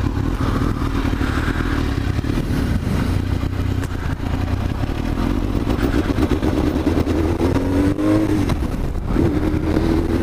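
Suzuki GSX-R1000 sport bike's inline-four engine running under way, heard from the rider's seat. Near the end the engine pitch climbs, dips, and climbs again as it accelerates.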